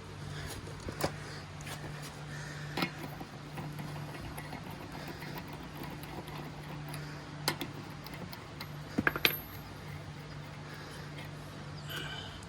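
Scattered metal clicks and clinks as loosened lug nuts are taken off a Jeep Wrangler's wheel with a tire iron. A steady low hum runs underneath.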